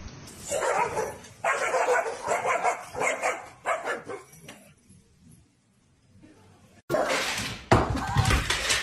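A golden-coated dog barking repeatedly in short bursts for the first few seconds, then falling quiet. Near the end, a louder stretch of noise follows.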